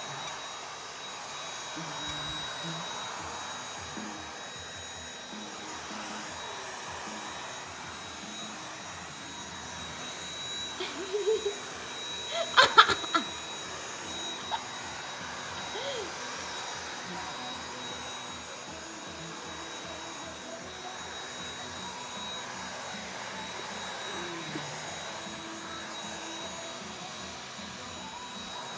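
Household vacuum cleaner running steadily, with a constant high whine over its rushing noise. About halfway through, a brief cluster of sharp, loud pitched sounds stands out above it.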